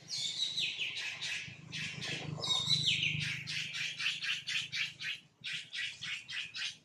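A bird calling: a high falling note at the start and again about two and a half seconds in, then a fast run of short, sharp chirps, about three or four a second, that stops just before the end.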